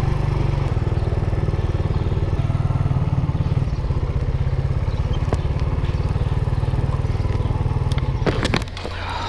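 Suzuki GN125's single-cylinder four-stroke engine running at low speed and idling, a steady rapid low thumping. Near the end the engine sound stops with a few clicks.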